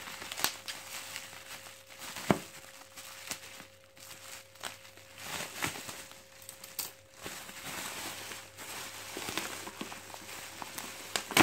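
Plastic mailer bag and thick bubble wrap crinkling and rustling as they are cut with scissors and pulled apart by hand, with scattered sharp snips and clicks.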